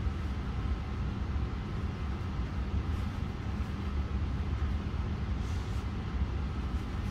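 Steady low rumble with hiss over it, unbroken background noise.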